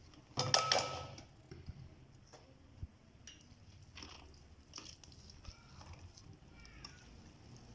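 Quiet kitchen handling sounds as grated potato is readied for straining: a short, louder clatter about half a second in, then scattered faint clicks and knocks of bowl and utensils.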